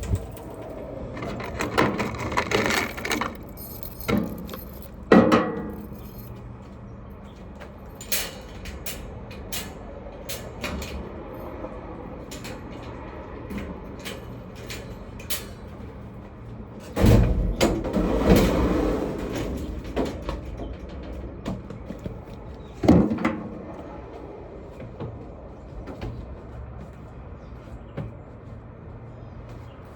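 Knocks and clicks of objects being handled, with a heavier low thump and rumble about seventeen seconds in.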